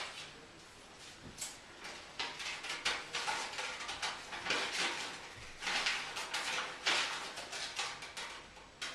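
Paper being handled close to a microphone for a Foley effect: irregular rustling and crackling in uneven bursts, done gently.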